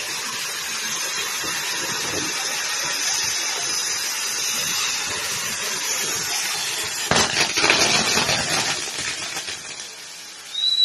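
Firework castle burning: its spark fountains hiss steadily. About seven seconds in there are a couple of seconds of dense crackling, which then die down.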